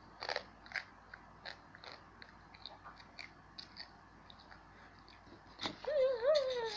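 A child chewing a dry, crunchy Yum Yum Chang Noi instant-noodle snack, with crisp crunches a few times a second. Near the end a child's voice hums a wavering "mmm".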